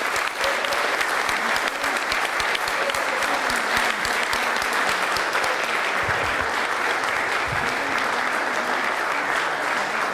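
A congregation applauding steadily, many hands clapping at once, in a large church sanctuary.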